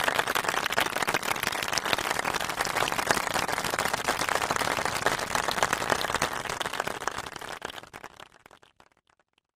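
Crowd applause: a dense clapping that fades out over the last two seconds or so.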